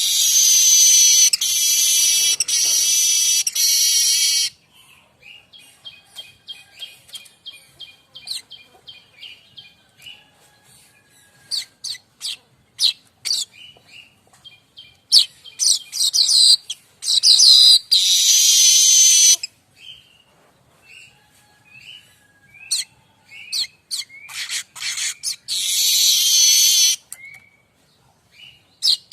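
Manyar kembang weaver singing: three long, loud, buzzy sizzling trills, with softer short chirps and quick ticking notes between them.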